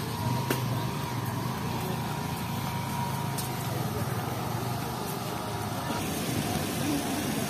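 Steady outdoor background noise of a busy car park: a vehicle engine running nearby, with a thin steady whine that stops about six seconds in, and faint voices.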